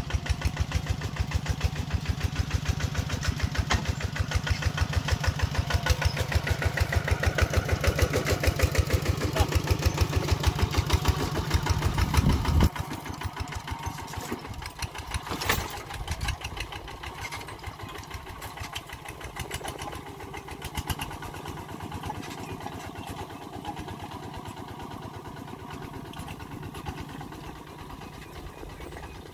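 Single-cylinder diesel engine of a two-wheel walking tractor chugging loudly at a steady pace while pulling a trailer. About twelve seconds in it drops abruptly to a quieter level, with one sharp clank shortly after, then fades steadily as the tractor moves off across the field.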